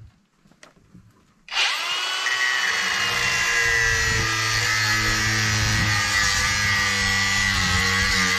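Cordless angle grinder starting about a second and a half in with a quick spin-up, then running steadily with a high whine as it cuts lengthwise through the PVC sleeve corroded onto a steel axle.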